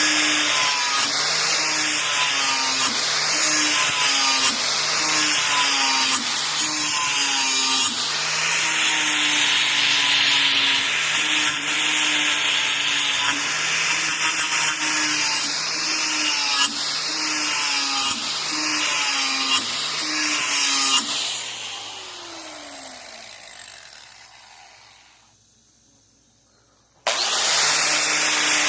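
Hand-held power tool grinding the cutting edge of a steel lawnmower blade: a steady motor whine with a rasping hiss, its note wavering as the tool is worked along the edge. About 21 seconds in it is switched off and winds down over a few seconds to near silence, then starts up again abruptly near the end.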